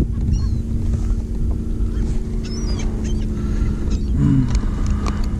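Steady wind-and-water rumble on a kayak-mounted action camera with a low steady hum, over which birds working the water give several short, high calls, about half a second in and again around two and a half seconds.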